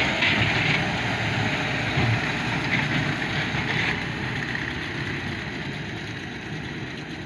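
Hattat 398 tractor's turbocharged, intercooled diesel engine running under load as it pulls a New Holland BB960 large square baler, with the baler's machinery working along with it. The sound fades gradually as the rig moves away.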